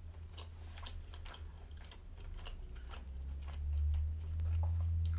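A person chewing food with the mouth closed: soft, irregular wet mouth clicks. A low rumble swells in the second half.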